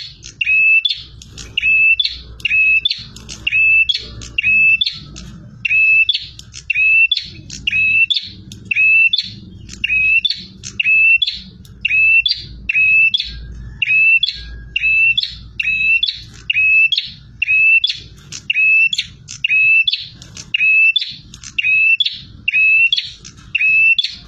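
A prinia (prenjak) calling over and over without pause: a sharp chirping call repeated evenly, about three every two seconds.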